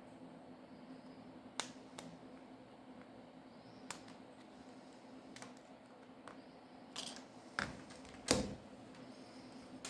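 Small tools and parts clicking and tapping against a smartphone's frame during disassembly: scattered sharp clicks, with a few louder knocks around seven to eight and a half seconds in, over a faint steady hum.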